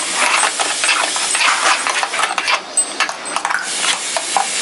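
A spoon stirring ground guava paste and water in a stainless steel blender jar, mixing the pulp into juice: a steady wet stirring sound with many quick small clicks and scrapes against the jar.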